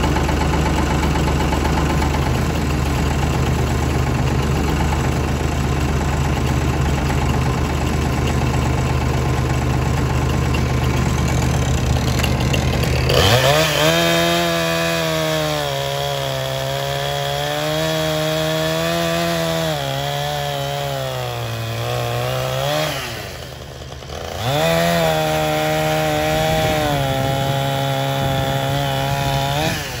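Farmtrac 60 tractor's diesel engine running steadily. About halfway through, a Husqvarna 460 chainsaw comes in at full throttle, cutting through a log with its pitch wavering under load. It drops off briefly, then cuts again and fades near the end.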